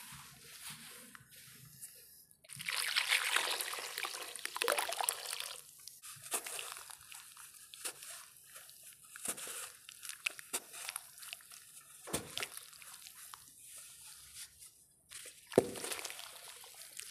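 Crumbling sand-cement falling by hand into a bucket of water. A gritty hiss of pouring grains starts about two and a half seconds in, then gives way to scattered crunches, trickles and drips, with one sharp, louder hit near the end.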